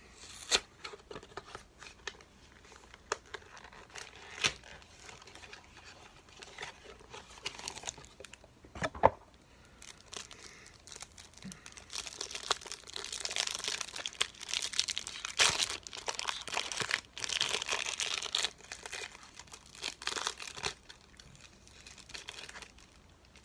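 Trading-card hanger box packaging being torn open: cardboard tabs pulled and plastic wrapping tearing and crinkling, with scattered sharp clicks. The rustling gets busier and louder in the second half.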